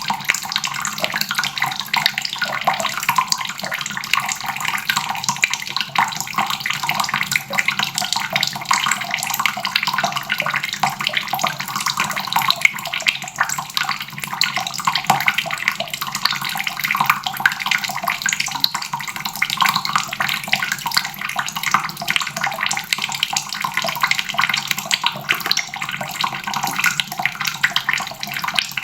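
Water faucet running steadily, a constant splashing stream of water into a basin.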